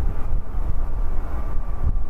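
The CFM LEAP-1B jet engines of a Boeing 737-8 MAX running at low power as it taxis, heard as a deep steady rumble with a faint thin whine.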